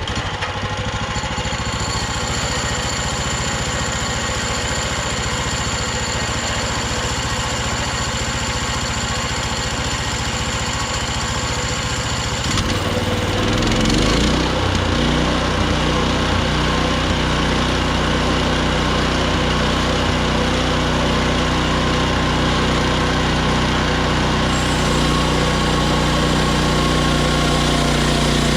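Small gas engine of a Hudson HFE30 bandsaw sawmill running steadily. About twelve seconds in its sound changes and grows a little louder, then holds steady again.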